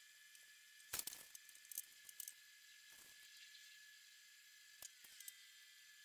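Near silence with a faint steady high hum and a few light clicks and taps, the loudest about a second in, from small brass buckle parts and cartridge heads being handled on a workbench.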